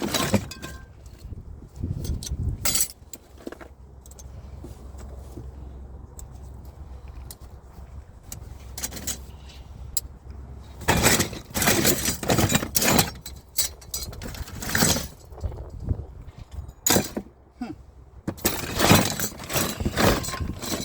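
Metal wrenches and other small hand tools clinking and clattering as they are rummaged through and picked up, in several bursts with quieter gaps between.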